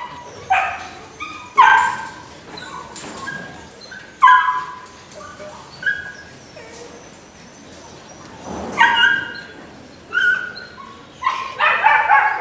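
Belgian Malinois puppy barking in short, high yaps as a towel is flicked at it during a temperament (nerve) test, with a quick run of barks near the end.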